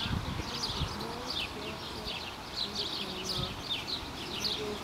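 Small birds chirping: many short, high, falling chirps repeating throughout, over a low rumble.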